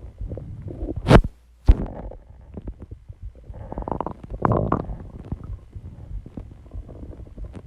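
Human stomach growling: irregular gurgles and rumbles, with two sharp knocks about a second in.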